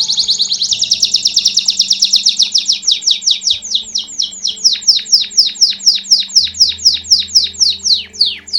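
Belgian canary singing 'campainha' (bell) song. A fast, dense trill breaks under a second in into a run of separate high notes, each sweeping downward in pitch, that slow to about five a second.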